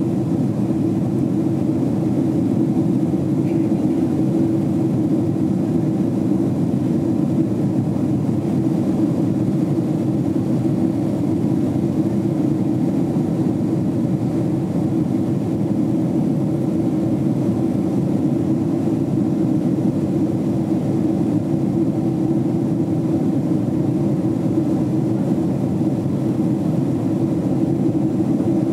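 Steady engine and airflow noise inside the cabin of a Boeing 767 jetliner climbing out after takeoff, heard from a window seat. It is an even, constant drone, heaviest in the low-middle range, with no changes.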